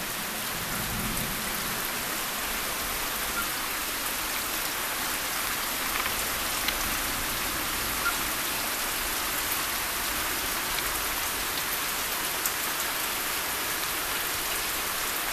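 Floodwater rushing through a deep roadside ditch and over the road: a steady, even hiss of fast-moving water.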